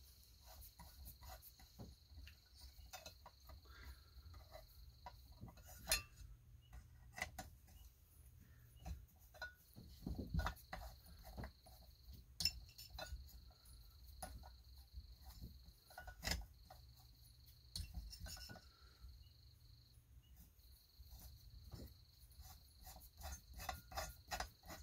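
Faint clicks and metal ticks of a T-handle socket wrench turning muffler bolts into a Stihl 028 chainsaw cylinder, a few louder taps among them, over a steady high thin tone that drops out now and then.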